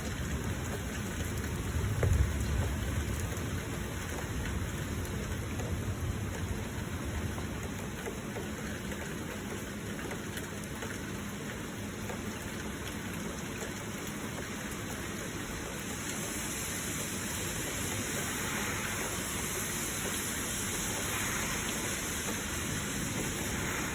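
Heavy rain falling steadily, with a low rumble about two seconds in. The high hiss of the rain grows stronger in the last third.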